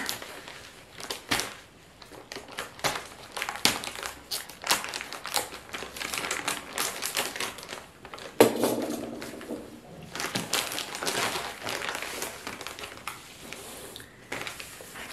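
White plastic mailing bag crinkling and rustling in irregular crackles as it is cut and pulled open and a stack of seed packets is drawn out.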